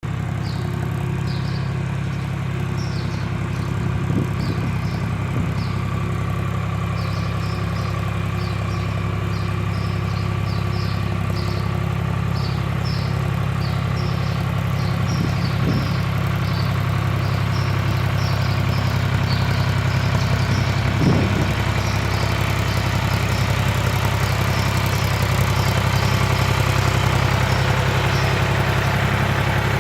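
John Deere 300B backhoe's engine running steadily at a constant speed, getting a little louder near the end. Short high chirps repeat over it, and there are a few faint knocks.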